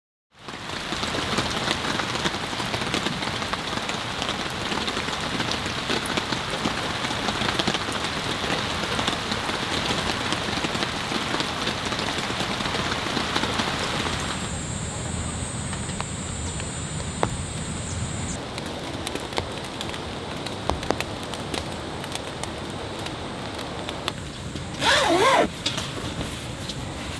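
Heavy rain falling in a steady dense hiss, turning quieter about halfway through, with a short louder sound with gliding pitch near the end.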